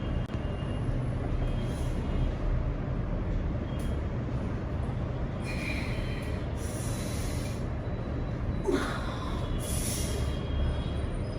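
Steady low whirr of an electric fan running, with two breathy hisses over it, one about halfway through and one near the end.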